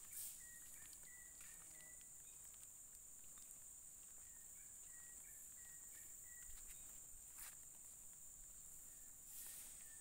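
Faint outdoor ambience: a steady high-pitched insect drone, with two runs of short, repeated bird chirps.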